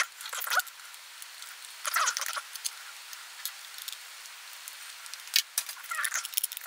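Fast-forwarded sound of hands and a small screwdriver working the screws of a metal hard-drive caddy: scattered clicks and short, squeaky chirps, high-pitched and thin from the speed-up, with no bass.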